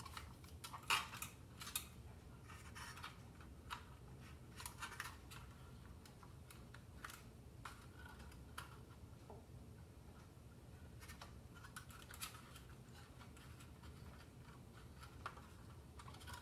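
Faint, scattered clicks and scrapes of a small flathead screwdriver and fingertips working at the top of a toy robot's body and its wiring. The sharpest clicks come about one and two seconds in.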